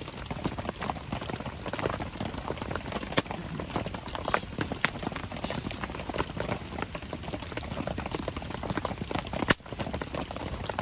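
Wood campfire crackling steadily in the rain, with many small snaps, a patter of raindrops and two sharp pops, one about three seconds in and one near the end.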